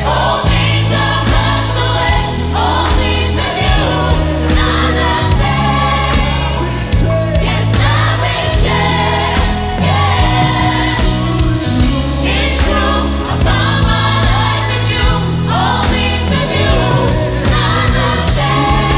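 Gospel choir singing with a live band: many voices over a steady bass line and drums.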